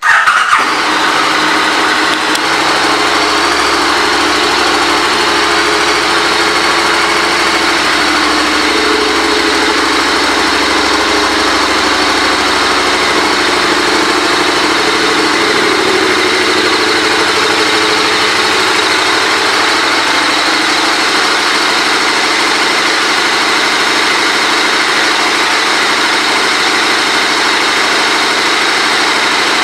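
KTM 1290 Super Adventure's V-twin engine starting up, flaring briefly, then idling steadily.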